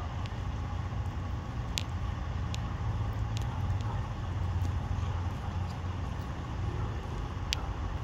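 Steady low rumble of idling vehicle engines, with a few faint sharp clicks scattered through.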